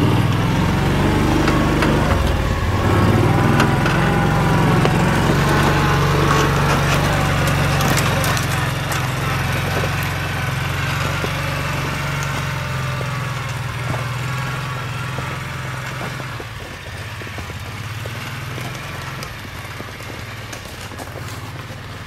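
Kawasaki utility vehicle's engine running as it drives off over snow, growing steadily fainter as it moves away.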